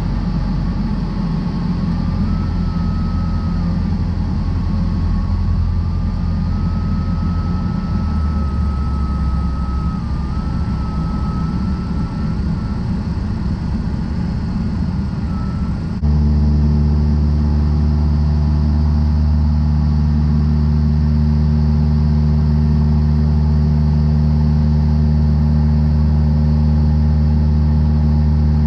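Cessna 152's four-cylinder Lycoming engine and propeller heard from inside the cockpit, throttled back on a practice forced-landing approach, with a faint wavering high tone over it. About halfway through, the sound cuts abruptly to the engine running steadily and more loudly at cruise power.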